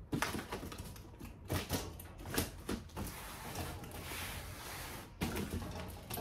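Cardboard shipping box being handled and turned around on a tabletop: scattered knocks and taps, with a longer scraping rustle of cardboard in the middle.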